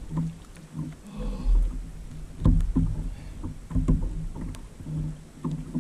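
Fishing rod and reel being worked aboard a plastic kayak while a big fish pulls against the bent rod: irregular knocks and clicks over a low, steady rumble.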